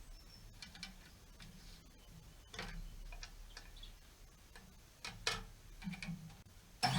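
Scattered light clicks and knocks, irregular and a few per second, typical of wood and tools being handled on a workbench; near the end an electric power tool switches on and spins up.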